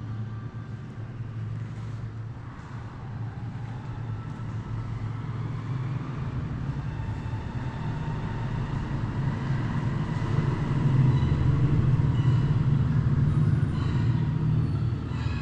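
Low engine rumble of a motor vehicle passing by, growing louder over several seconds, peaking near the end and then easing off.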